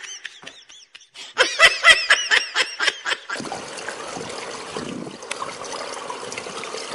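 A person laughing in a quick run of short bursts. About three seconds in, the laughter gives way to a steady, even wash of outdoor noise with trickling pool water.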